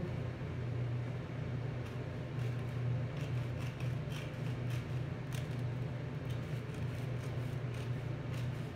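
Scissors snipping and sliding through a sheet of glossy metallic film, the film crinkling in short scattered bursts, over a steady low hum from a bathroom exhaust fan.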